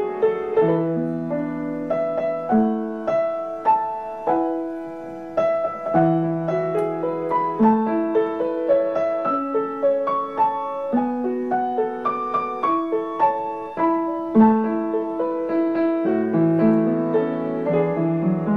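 Background piano music: an unhurried instrumental melody of single notes over held chords.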